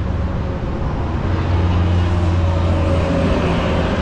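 Steady road-traffic rumble from a highway, with one vehicle's engine drone growing louder about a second and a half in and easing off near the end.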